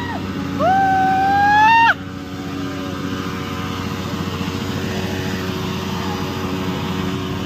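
Motorcycle burnout: an engine running at steady revs while the rear tyre spins on the tarmac. Near the start a loud high tone rises for over a second and then cuts off sharply.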